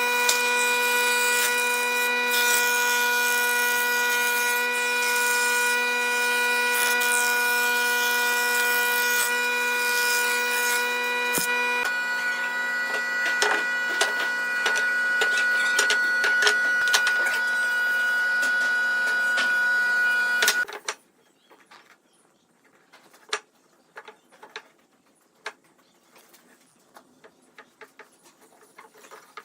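An electric power tool runs steadily at a high whine while cutting or shaping wood, with its pitch shifting slightly about halfway and a rattle of short clicks. It cuts off suddenly about two-thirds of the way in, followed by a few faint taps of handling.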